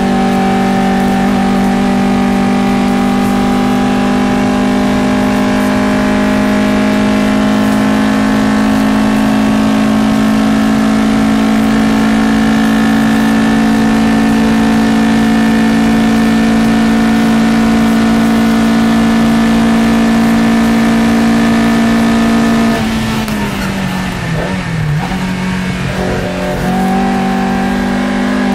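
Matra Jet 6's Renault Gordini 1296 cc four-cylinder engine at full throttle, heard from inside the cockpit, holding a steady high note down a long straight. About 23 seconds in, the note drops as the driver lifts off and brakes for the corner, dips lower, then climbs again as he accelerates out near the end.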